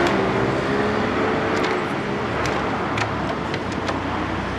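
Honda Monkey Z50's small four-stroke single idling steadily through a straight-pipe exhaust.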